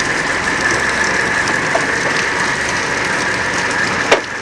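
Fishing boat's machinery running steadily, a constant noise with a held high whine. About four seconds in there is a single sharp knock.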